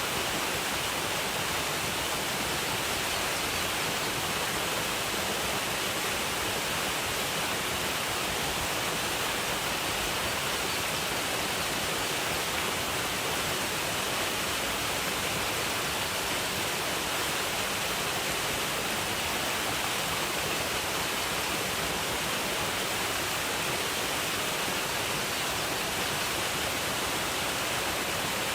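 Waterfall: a steady, unbroken rush of falling water, heavy in the hiss.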